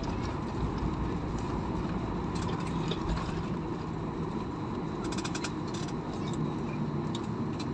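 Airliner cabin noise after landing: a steady drone of engine and airflow, with a brief clatter of rattling cabin fittings about five seconds in.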